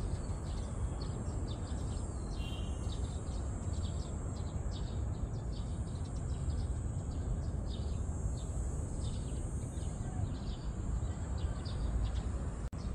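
Outdoor ambience: a steady low rumble with many short bird chirps scattered throughout.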